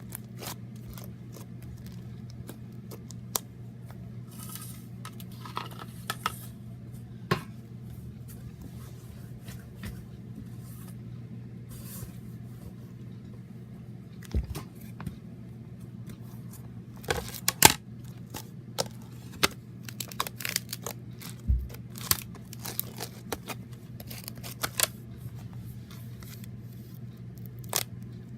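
Slime being stretched, squeezed and pulled apart by hand, giving scattered sharp sticky clicks and pops, more of them in the second half, over a steady low hum.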